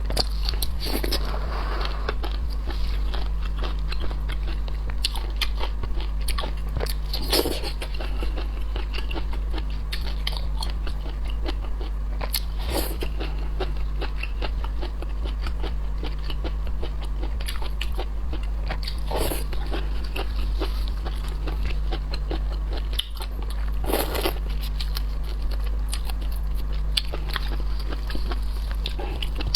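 Close-miked chewing and crunching of shrimp, with a constant patter of small wet mouth clicks and a louder crunch every five or six seconds, over a steady low hum.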